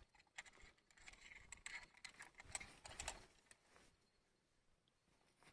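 Faint clicks and rustling from hands hooking a fish onto a handheld digital hanging scale, trailing off into near silence after about three and a half seconds.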